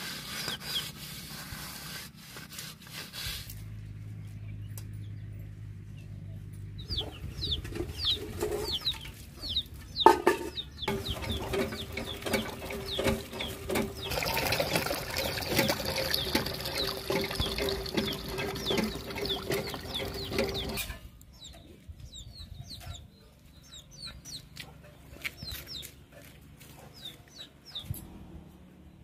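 A pot being scrubbed by hand, then a hand pump worked stroke after stroke with water splashing out, the loudest part, lasting about ten seconds from about a third of the way in. Chickens are heard clucking and calling around it.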